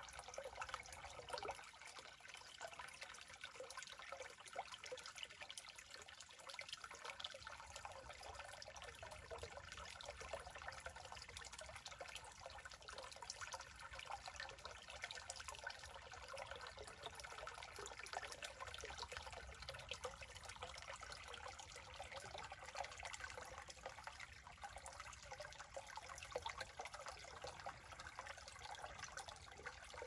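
Small shallow forest stream trickling steadily over sand and leaf litter, a faint, even babble of running water.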